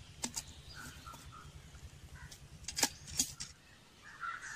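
A few sharp clicks and clinks, two just after the start and two close together about three seconds in, over quiet outdoor ambience with short faint bird chirps.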